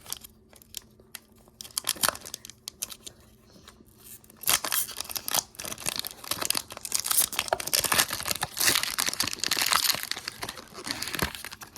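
Foil wrapper of a Pokémon trading card booster pack being torn open and crinkled, with a few light handling clicks at first. About four seconds in, the dense crinkling and tearing starts and keeps on.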